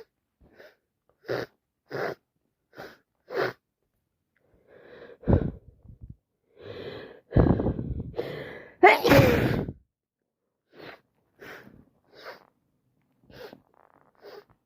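A person with a head cold sniffing repeatedly, then sneezing three times in a row with a quick gasping in-breath before each sneeze. The third sneeze is the loudest. Short sniffs follow.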